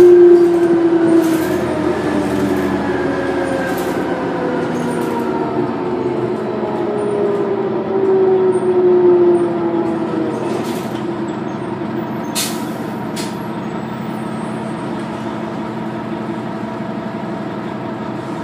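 Interior sound of a New Flyer D40LF diesel city bus under way. The drivetrain whine slides down in pitch twice as the bus slows, over a steady engine and road drone, with two sharp clicks or rattles a little past the middle.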